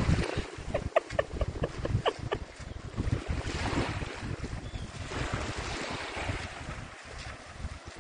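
Wind buffeting the microphone in steady gusts, with water sloshing and splashing as a person wades through ankle-deep seawater. A quick series of short high chirps comes in the first couple of seconds.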